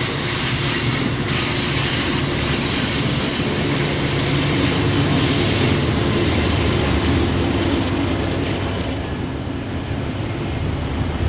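Loaded coal train passing: steel wheels rolling on the rails under loaded coal hopper cars, with the steady drone of a diesel locomotive placed in the middle of the train. It is loudest around the middle.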